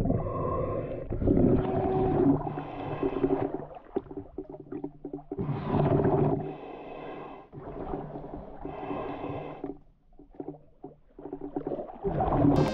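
A snorkeler breathing through a snorkel, heard through a waterproof camera: slow breaths in and out, some carrying a wavering pitched tone, about one every three seconds, mixed with water swishing against the camera.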